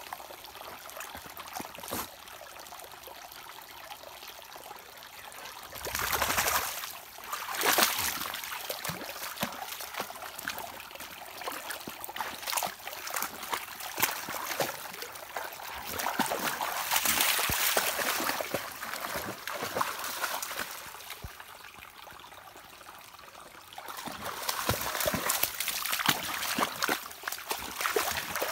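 Shallow stream trickling and burbling over rocks, with a Doberman's legs splashing through the water as it wades. The splashing gets louder in a few bouts of several seconds.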